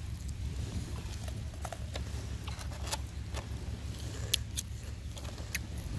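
Scattered small clicks and crinkles of a plastic food-handling glove and plastic sheet as rice is picked up and eaten by hand, over a steady low rumble.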